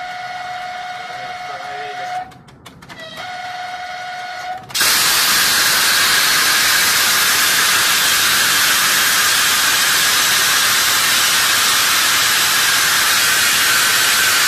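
Train horn sounding a long, steady one-tone blast, broken off briefly about two seconds in and then resumed. About five seconds in, the horn gives way to a loud, steady hiss.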